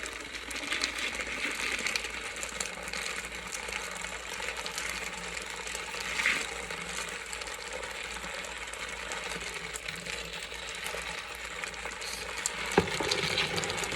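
Matcha latte being stirred in a cup: a steady swishing of liquid, with light clicks throughout and a sharper knock near the end.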